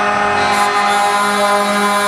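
Truck air horn held in a long, steady multi-tone chord.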